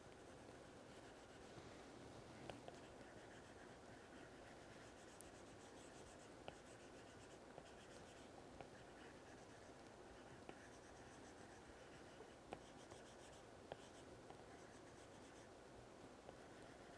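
Apple Pencil tip tapping and sliding on an iPad's glass screen while colouring: faint scratchy strokes with small sharp ticks every second or so.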